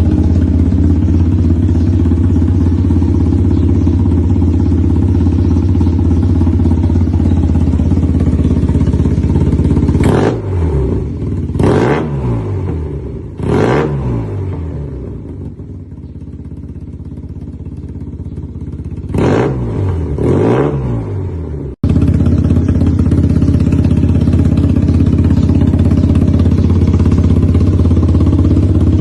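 Yamaha TMAX maxi-scooter's parallel-twin engine running through an SC titanium full exhaust system: idling steadily, then blipped three times about ten seconds in and twice more near twenty seconds, each rev rising and falling in pitch before dropping back. The sound breaks off for an instant and the idle resumes.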